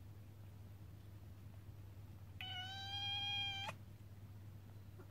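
A cat's single long meow, even in pitch and lasting just over a second, coming about two and a half seconds in.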